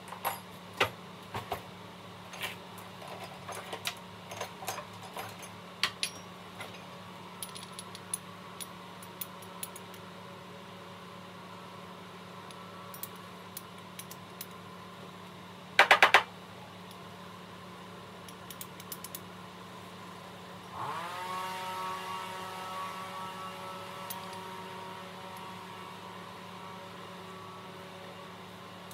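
Metal measuring spoons clinking and jangling as spice is spooned into a pot, with a quick burst of loud metal taps about 16 seconds in. About 21 seconds in, a whirring hum starts up, rising in pitch and then holding steady over a constant low hum.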